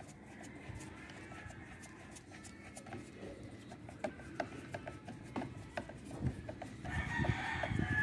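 A rooster crowing: a faint crow in the first few seconds and a louder, longer one near the end, over scattered light clicks.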